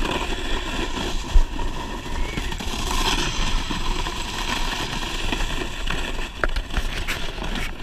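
Snowboard sliding and carving over groomed snow, a steady scraping hiss mixed with wind rushing over the action camera's microphone.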